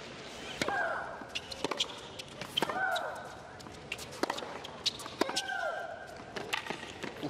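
Tennis rally on a hard court: racket strikes on the ball about once a second. A player gives a high, falling shriek on every other shot, three times.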